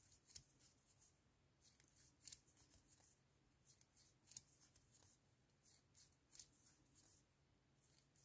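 Near silence, with a few faint clicks and rustles as a crochet hook and cotton yarn work single crochet stitches around a metal snap hair clip.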